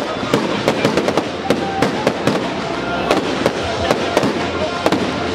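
Fireworks display in full barrage: a rapid, continuous run of shell bursts and crackle, several sharp reports a second over a dense wash of noise.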